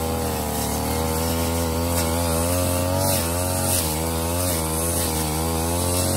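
Ogawa CC33 two-stroke brush cutter with a metal blade running at high revs. Its engine pitch dips and recovers a few times as the blade cuts through overgrown lemongrass.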